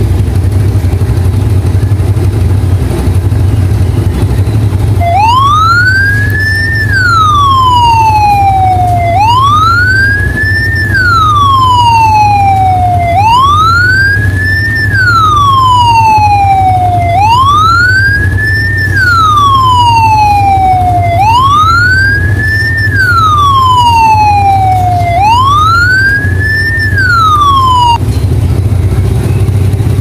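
New police-style siren horn on a 2006 Yamaha Mio Sporty scooter wailing in slow sweeps. Six cycles of about four seconds each, every one rising quickly and then falling more slowly. It starts about five seconds in and cuts off a couple of seconds before the end, over a steady low rumble.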